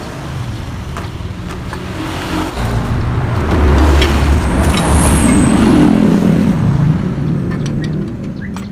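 A motor vehicle passing by: its engine rumble grows louder over a few seconds, peaks, and then fades away.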